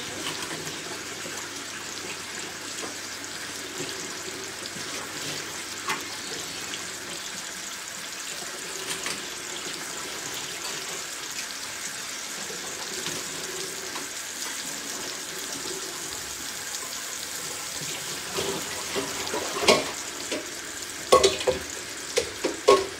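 Sardines frying in hot oil in a stainless steel pan, a steady sizzle. Near the end, a few sharp knocks of cookware being handled.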